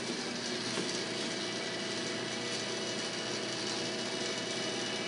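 Electric motor and pump of a diesel fuel filter cart running steadily, pumping diesel through the pre-filter and coalescing modules: a constant mechanical hum and whir that does not change.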